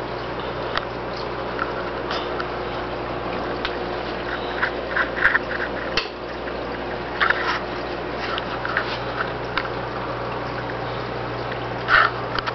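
Aquarium filtration running: a steady pump hum under uneven gurgling and splashing of water, with a louder gurgle near the end.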